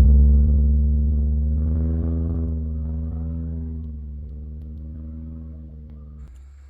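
Subaru Crosstrek's flat-four engine running with a low, steady drone that fades gradually; its higher tones drop away suddenly near the end.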